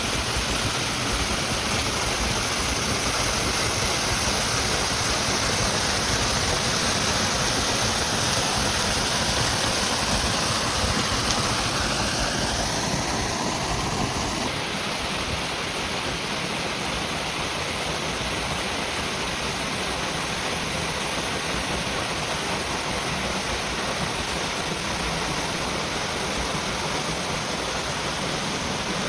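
A waterfall rushing: a steady wash of falling water, a little duller from about halfway through.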